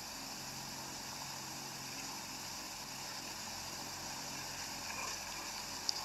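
Steady background hiss with a faint low hum, with a faint click near the end.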